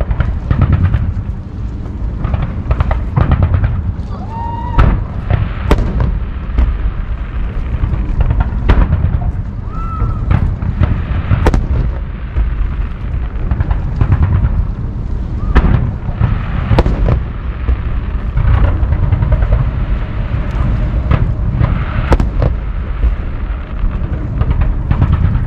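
Aerial fireworks display: a fast, irregular barrage of shell bursts and bangs over a continuous deep rumble.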